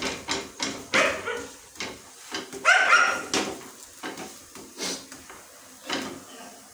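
Irregular sharp knocks and slaps from parotta making in a kitchen. A short, loud pitched sound comes about three seconds in.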